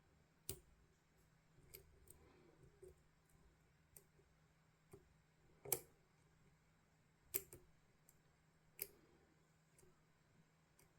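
Faint, sharp clicks of a pick and tension tool working in a GLK dimple lock during picking: about eight irregularly spaced clicks, the loudest about halfway through.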